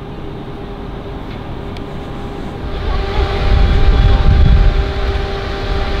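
A car engine running with a steady hum; the engine sound swells about three seconds in, stays loud for a second or two, then eases slightly.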